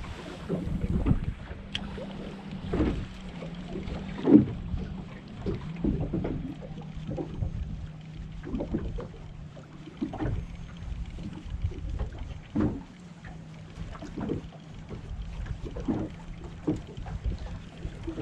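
Small-boat sounds in wind: irregular slaps of water against the hull and wind on the microphone as the boat drifts, with a low steady hum underneath.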